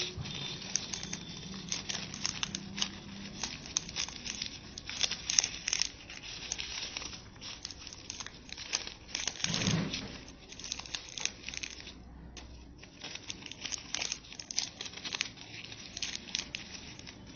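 Newspaper crinkling and rustling in the hands, with many small irregular crackles, as glued strips are pressed and wrapped around a wire-and-paper doll figure. A louder rustle comes a little past halfway.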